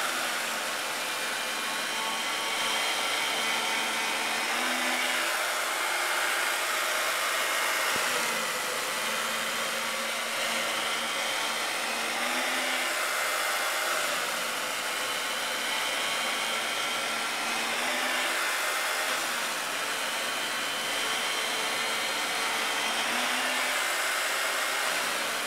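Electric chain mortiser running continuously as its cutting chain plunges into a timber beam. A steady motor whine over a noisy rush, its pitch sagging and recovering several times.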